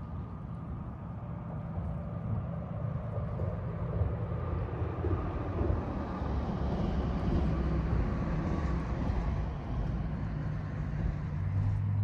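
Road traffic on the highway bridge: a low, steady rumble with tyre hum that slowly swells to a peak past the middle and then eases off.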